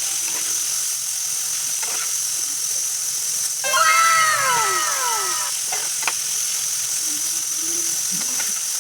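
Bhaji frying in a pan with a steady sizzle and a few clicks of the stirring spoon. About halfway through, a cat meows: a drawn-out call that falls in pitch, the loudest sound here.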